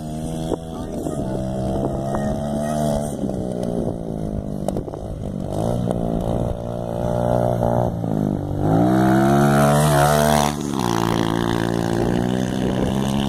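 Dirt bike engine revving and easing off as it rides the sandy track. It revs up sharply about eight and a half seconds in and is loudest as the bike passes close through a corner, then drops back.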